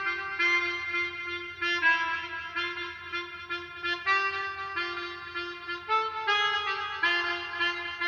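A melodica-style free-reed keyboard instrument plays a bouncy tune: short repeated low notes under held chords that change every half second or so.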